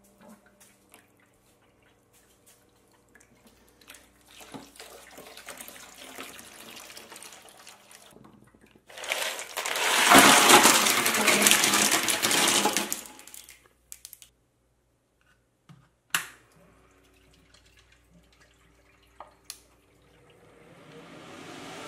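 Water running into a plastic cooler tub, then a bowl of ice cubes tipped in with a loud rattling splash lasting about four seconds. A couple of sharp knocks follow, and near the end the cooler's two lid fans start and a rising, steady rush of air builds.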